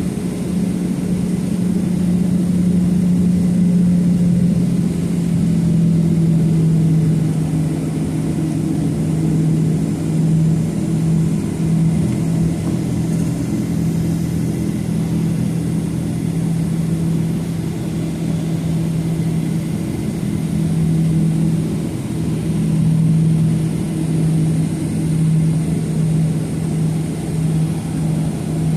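Boeing 737-800's CFM56-7B jet engines heard from inside the cabin at high thrust during takeoff. A loud, steady low drone over a rumble, dipping slightly in pitch about five seconds in.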